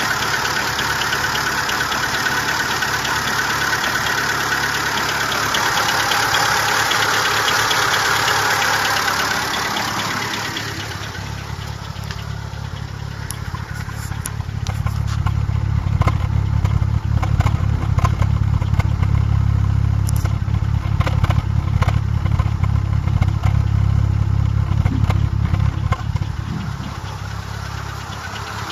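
Seat Ibiza 6L's engine running. For about the first ten seconds a loud rushing hiss sits over it. After that it settles into a steady low idle hum with light, irregular ticking.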